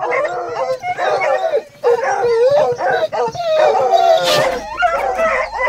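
Several hunting hounds baying and howling at once, in long wavering overlapping calls. There is a short sharp noise about four seconds in.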